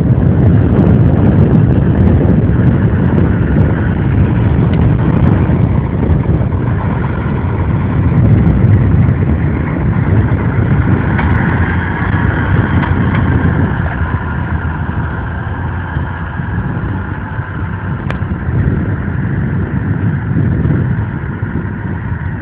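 SAME Silver 100.6 tractor's diesel engine running under load as it pulls a Kverneland reversible plough through the soil, passing close by and then working away, growing quieter over the second half.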